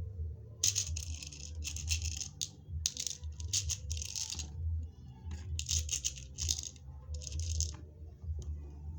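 Small beads and metal rivets rattling in short bursts, about six times, over a steady low hum.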